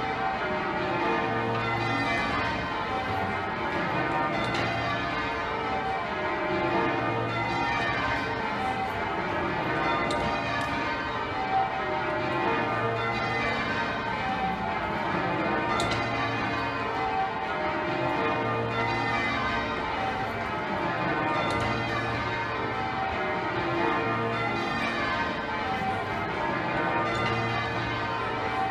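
Change ringing on a twelve-bell church ring with a tenor of about 72 hundredweight. The bells strike one after another in falling rows, and the deep tenor sounds at the end of each row every few seconds.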